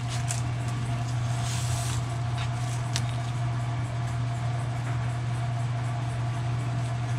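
A steady low hum from running machinery, with a few faint clicks and a brief rustle as adhesive foam sealing tape is peeled from its backing and pressed around the speaker cutout of an MDF box.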